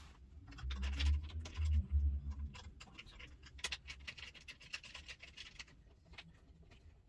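Scraping and clicking of objects being handled, with low thuds about one and two seconds in.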